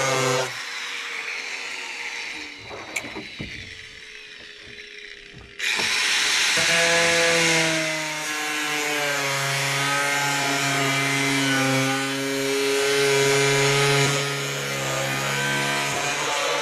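DeWalt electric angle grinder cutting a thick plastic barrel. It lets off about half a second in and winds down, then comes back on sharply a few seconds later and runs loud under load. Its pitch sags and wavers as the blade bogs down in the thick plastic.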